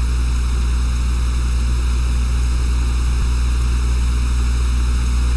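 Steady low electrical hum with a hiss over it, unbroken and unchanging: unwanted noise in the audio feed.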